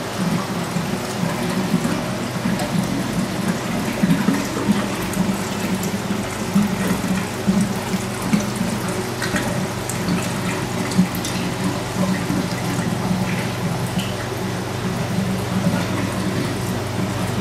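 Aquarium water splashing and churning steadily, its surface stirred by a wavemaker pump, over a steady low hum.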